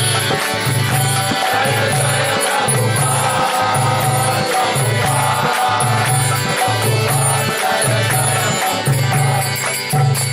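Kirtan: devotional call-and-response chanting of a mantra, carried by sustained tones, jangling hand percussion and a drum beating a steady rhythm.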